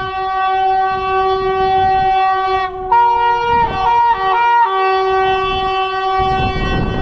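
A train horn held in one long blast. About halfway through it shifts to a higher chord and flicks quickly between tones several times, then returns to its first tone.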